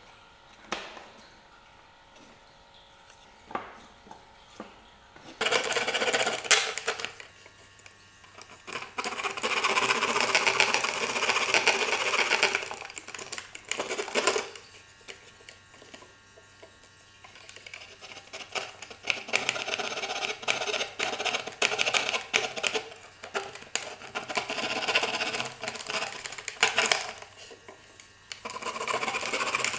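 A small metal hand tool rasping against the thin pine strips of a kumiko lattice in quick repeated strokes, in spells of a few seconds with short pauses between. Before it, a few light clicks of wood on wood.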